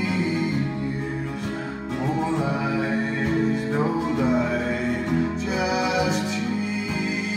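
A song playing, with plucked guitar and singing.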